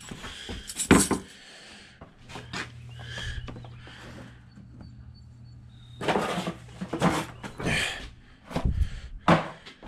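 Unpacking a new air needle scaler: irregular rustling and knocking of the cardboard box, plastic bag and tool being handled, with a steady low hum underneath.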